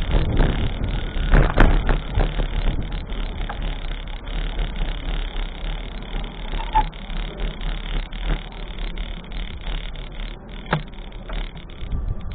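Steady low rumble of wind and traffic noise outdoors, with a few short knocks, one about a second and a half in and one near the end.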